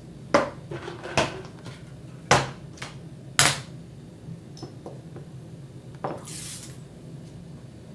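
Sharp knocks and clicks of a plastic syringe and lab containers being handled on a bench, four loud ones in the first three and a half seconds, then a short hiss about six seconds in.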